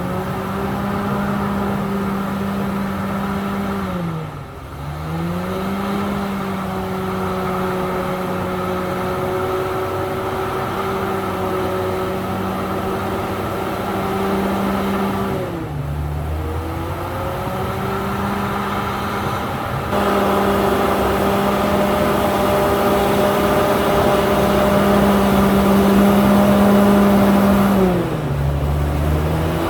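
Komatsu D68ESS bulldozer's diesel engine running at steady high revs. The revs drop sharply and climb back three times, about four, sixteen and twenty-eight seconds in, and the engine grows louder from about twenty seconds in.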